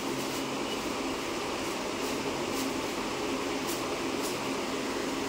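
Steady whirr of an electric fan, with a few faint crinkles of a plastic bag being handled.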